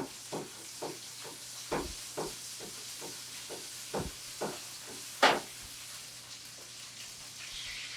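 Pureed tomatoes poured into a pan of hot garlic-infused olive oil: a steady sizzle under a run of short plops and knocks, roughly two a second, the loudest about five seconds in.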